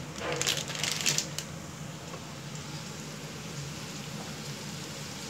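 A plastic bag of rice noodles crinkles for about a second, then chopped onion frying in oil in a pan sizzles steadily.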